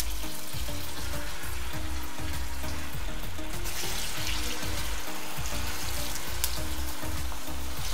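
Mutton keema meatballs sizzling steadily as they deep-fry in hot oil, the oil bubbling hard around them. Background music with a low beat plays underneath.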